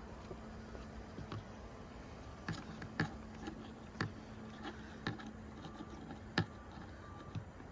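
Scattered light clicks and taps, roughly one a second, as a hand screwdriver works a fastener out of a boat's panel.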